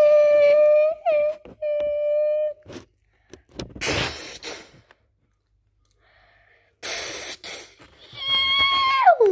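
A child's voice humming long held notes, broken by two loud breathy hisses, one about four seconds in and one about seven seconds in. Near the end a higher note slides steeply downward.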